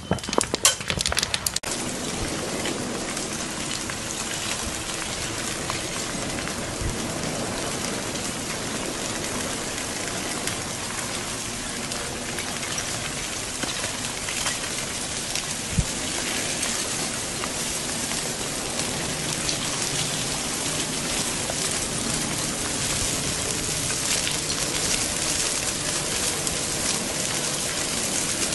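Crackling and steady hissing of an advancing lava flow burning through vegetation: a flurry of sharp crackles in the first two seconds, then an even, rain-like hiss dotted with faint pops, one louder pop about halfway through.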